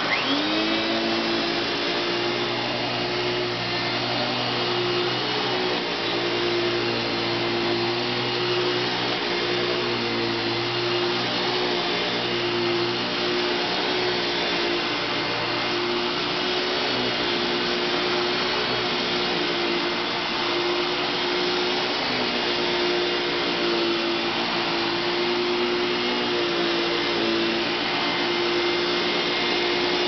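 Hoover Electronic 1000 canister vacuum cleaner (model S3231, made in 1982) running with its power nozzle on carpet. The motor rises in pitch as it speeds up at the start, then holds a steady whine over a rush of air.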